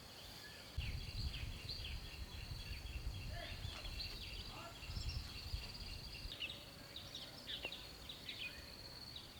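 Outdoor rural ambience: birds chirping over a steady high insect buzz, with a low rumble from about a second in until past the middle.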